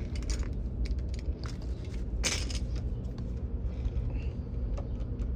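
Handling of a utility knife and a cardboard lock box: scattered light clicks and taps, with a short scrape just after two seconds in, as if tape or cardboard is being cut, over a steady low hum.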